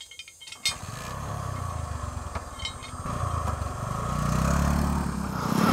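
Motorcycle engine starting about half a second in, then running and revving as it pulls away.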